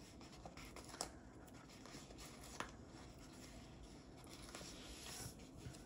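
Faint rustling of a paper sticker sheet being handled, with two light clicks, about a second in and again a moment later.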